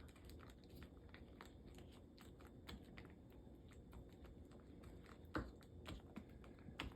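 Faint, irregular tapping and scraping of a flat-blade screwdriver working two-part epoxy putty against a plastic bag wrapper, with a sharper tap about five seconds in.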